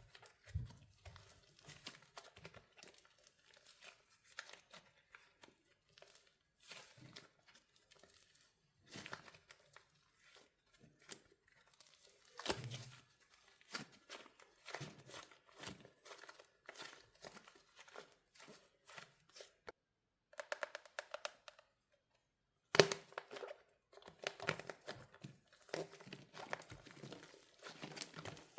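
Hardened wax coating on a soft soap squishy being squeezed and cracked by hand: irregular crackling and crunching with scattered sharp snaps, the loudest snap about three-quarters of the way through.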